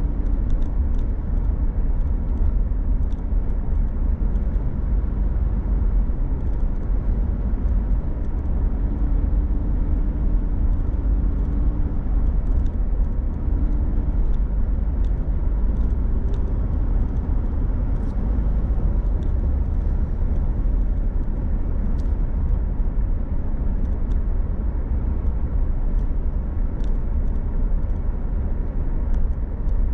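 A vehicle driving, with a steady low rumble of road and engine noise and faint scattered ticks.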